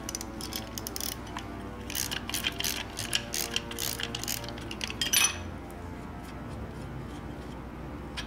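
Socket ratchet clicking in quick runs while backing a nut off a suspension upper control arm bolt, with small metal tool clinks; a louder clatter about five seconds in, after which the clicking stops.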